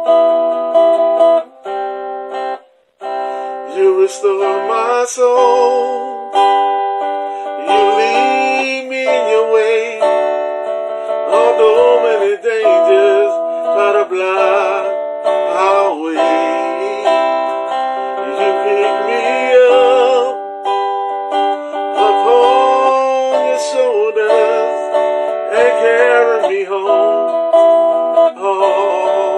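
A man singing a worship song with vibrato over plucked acoustic guitar; the music breaks off briefly about three seconds in.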